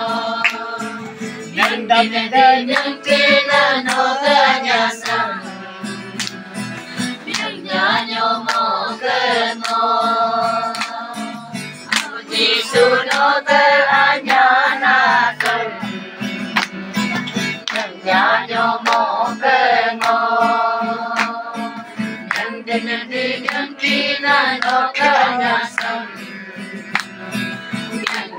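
A group of voices, mostly women, singing a Christian hymn together unaccompanied, with hands clapping in time to the song.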